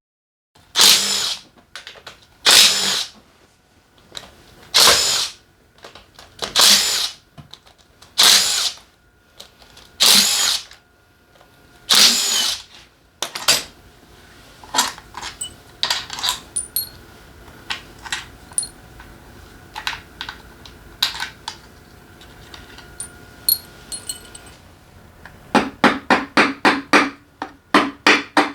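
A power tool run in short bursts, about every two seconds, to undo bolts while a motorcycle engine is taken apart. Then come quieter clinks of small metal parts, and near the end a fast, even run of strokes, about five a second.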